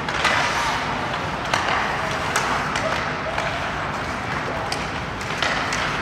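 Ice hockey play: skate blades scraping across the ice in swells of hiss, with a few sharp clacks of sticks on the puck, over the steady noise of the rink.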